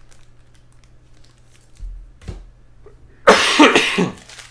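A man coughing: a soft throat sound about two seconds in, then a loud run of two or three quick coughs about three seconds in.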